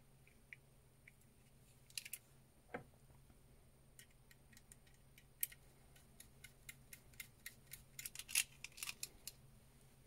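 Faint, irregular clicks and ticks of plastic and metal parts on an ignition lock cylinder assembly being handled, and a small screw being turned with a screwdriver. The clicks come sparsely at first and grow busier over the last few seconds.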